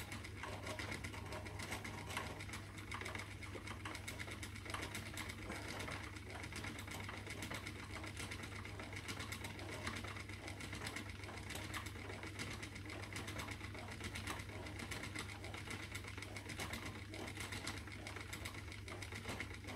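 Spinning wheel running steadily while plying yarn: an even mechanical whirr with fine, rapid ticking and a steady low hum.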